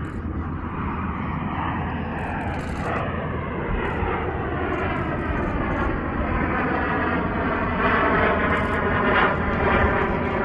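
Snowbirds' Canadair CT-114 Tutor jets flying past, their jet noise growing steadily louder as the formation approaches.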